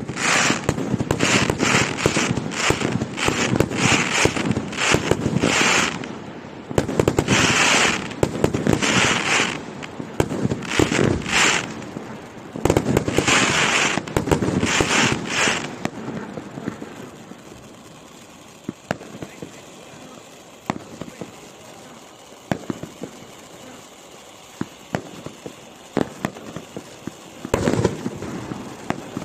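Cone fountain firework spraying sparks: a loud rushing hiss that surges about twice a second for the first sixteen seconds or so. It then dies down to scattered sharp crackling pops, and a loud rush comes back near the end.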